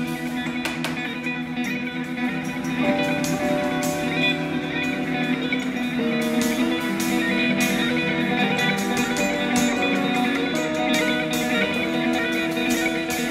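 Improvised instrumental music on guitars: long held notes that move to new pitches every second or two.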